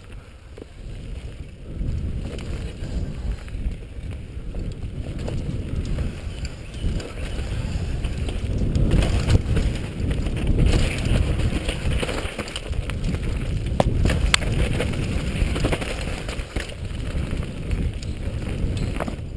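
Mountain bike riding fast down a dirt forest trail: tyres rumbling over the ground, wind buffeting the action camera's microphone, and scattered knocks and rattles as the bike hits bumps and roots.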